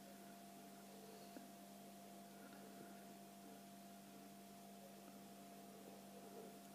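Near silence: a faint steady hum over light hiss.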